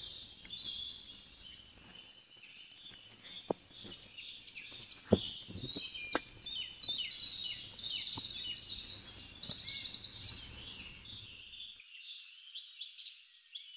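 Several birds chirping and calling together in rapid, overlapping trills, with a few faint knocks in between.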